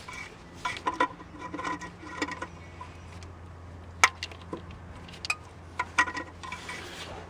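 A cloth rag rubbing and scuffing around rubber hoses and wiring in a truck's engine bay, with scattered light clicks and knocks from hand and rag against plastic and metal parts, the sharpest about four seconds in. A steady low hum runs underneath.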